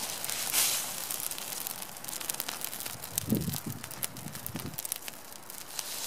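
Bonfire of dry leaves and twigs crackling, with many sharp pops over a steady hiss and a brief louder hiss about half a second in. A few soft low thumps come around the middle.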